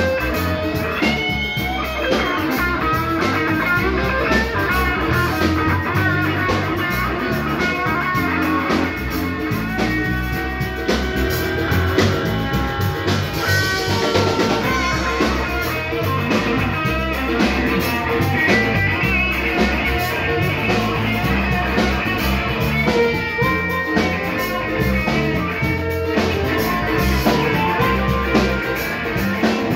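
Live blues band playing, with guitar and drum kit.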